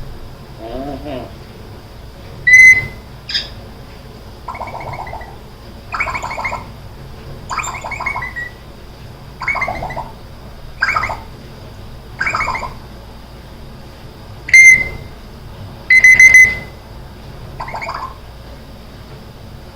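African grey parrot repeating a string of short calls, about one every second and a half. A few of the calls carry a piercing, beep-like note, and the loudest of these come early on and again about two-thirds of the way through.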